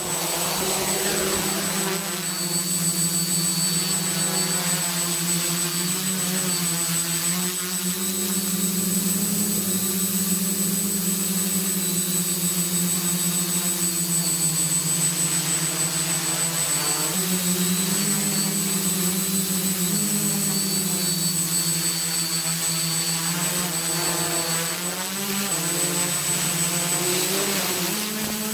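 Quadcopter's motors and propellers buzzing steadily as it flies, the pitch shifting up and down a few times as the motor speeds change.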